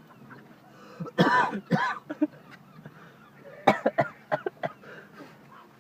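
Gulls calling in two short bouts of cries, about a second in and again near four seconds.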